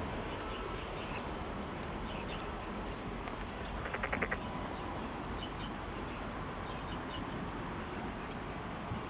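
Outdoor riverbank ambience: a steady low background hiss, with a short rapid rattle of clicks about four seconds in.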